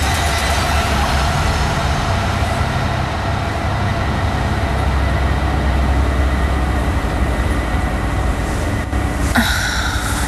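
Loud, steady vehicle rumble and rushing road noise from an oncoming-traffic near-collision sequence, cutting off sharply near the end into a different sound.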